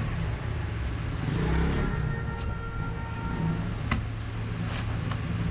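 Homemade welding transformer humming steadily on mains power, with a sharp click about four seconds in.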